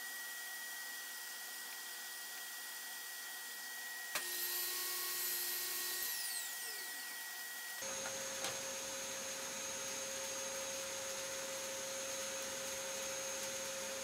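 Table saw running with a steady whine. Partway through, the sound changes abruptly and turns brighter for a couple of seconds, and then a whine falls in pitch as the blade winds down. A different steady whine follows.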